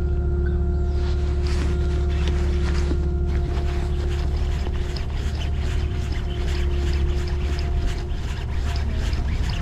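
Boat engine running with a steady low drone. Scattered clicks and rustles come in over it from about a second and a half in.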